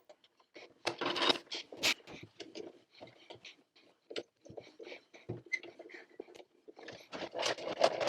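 Irregular clicks, taps and scrapes of hard plastic parts being handled and fitted together while reassembling a pool cleaner.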